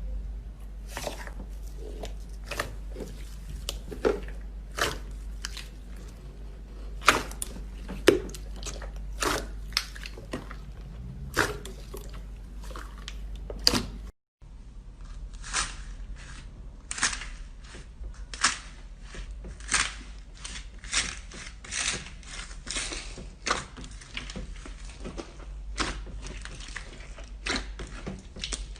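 Slime being squeezed and pressed by hand, giving irregular wet clicks and pops over a low steady hum, with a split-second gap about halfway through.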